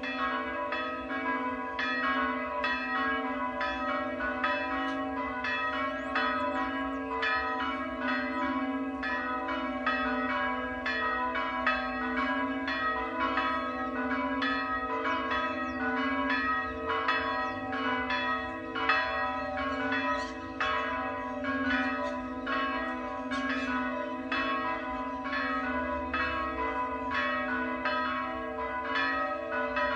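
Several monastery church bells ringing together in a continuous, even run of strikes, about three a second, their deep tones humming on between strokes.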